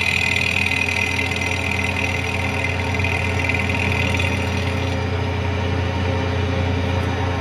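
Kearney & Trecker milling machine running, its end mill cutting the top edge of a cast aluminium intake manifold: a steady motor hum under a higher-pitched cutting noise. The cutting noise eases off about halfway through.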